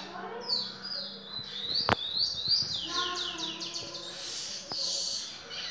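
Caged lesser goldfinch (dominico) singing: thin, high sweeping notes and a quick run of repeated notes about three seconds in. A single sharp click sounds just before the two-second mark.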